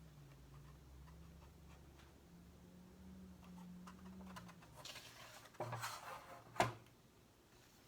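Close, quiet handling of stickers and sticker sheets: faint ticks and light taps, then a short crinkly rustle of the sheets late on and one sharp tap, like a sticker being pressed down onto the box.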